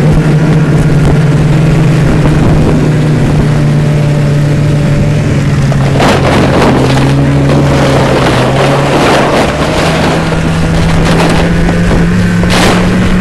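Snowmobile engine running steadily at speed, heard from a sled towed close behind, with wind buffeting the microphone. A burst of knocks and scraping comes about halfway through, and another near the end.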